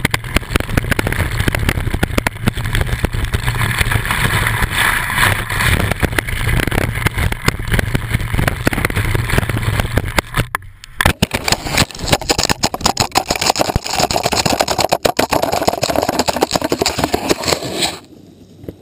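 Wind buffeting a moving camera's microphone at speed, with skis scraping over snow. About ten seconds in, the rumble breaks off into a run of sharp knocks and scrapes, then the rushing returns. It drops away sharply near the end.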